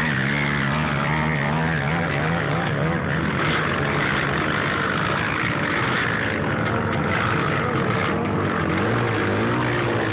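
Off-road vehicle engines, quads and a sand rail, running under load and revving as they climb a sand dune, their pitch rising and falling.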